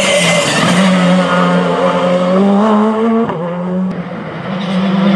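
Škoda Fabia R5 rally car's turbocharged 1.6-litre four-cylinder engine at full throttle, its pitch climbing as it accelerates with a brief break at a gear change. About four seconds in there is a short crack and the engine drops away, then a rally engine rises again.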